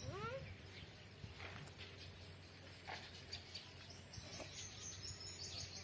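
Faint outdoor ambience: scattered high bird chirps over a steady low hum, with a rising call at the start and a few soft taps.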